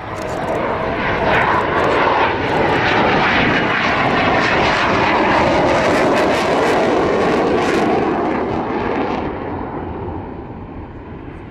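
Saab JAS 39 Gripen's single Volvo RM12 turbofan jet engine passing low and slow. It swells quickly to a loud rush, then fades away over the last few seconds.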